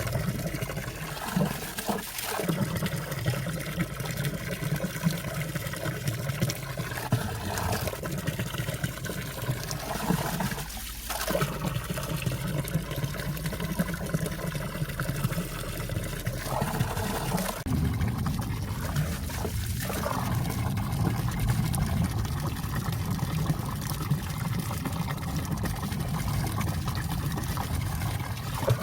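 Valley stream water running and trickling among ice, a steady rush and burble with a few brief shifts in tone.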